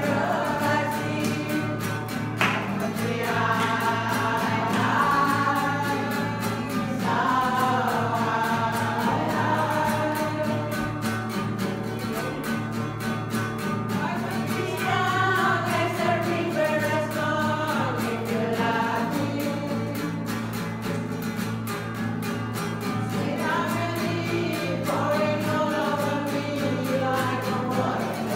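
Women's choir singing together, accompanied by a strummed acoustic guitar.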